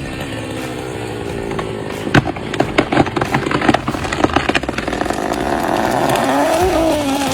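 Chainsaw running and cutting through wood, with a burst of sharp cracks and snaps of splitting wood from about two seconds in. Near the end the engine pitch rises and falls.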